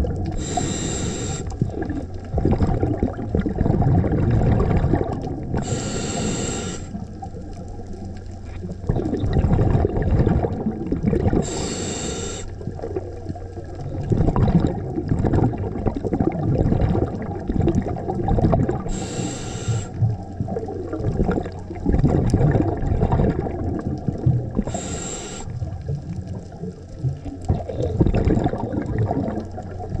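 Scuba diver breathing through a regulator underwater: five short hissing inhalations about six seconds apart, with the gurgling rumble of exhaled bubbles between them.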